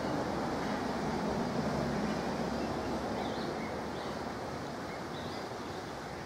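An 1894 Hunslet 0-4-0 saddle tank steam locomotive working along the line, its exhaust a steady noise that slowly fades as it draws away. A few faint bird chirps come in the middle.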